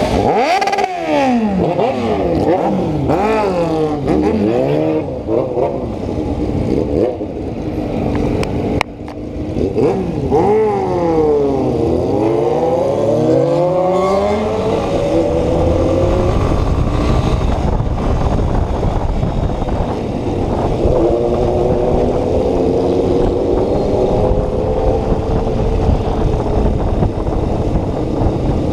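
Yamaha Ténéré 250 single-cylinder motorcycle engine revving up and down again and again, its pitch rising and falling through the first half. It then holds a steadier pitch at speed, with wind rumble on the microphone.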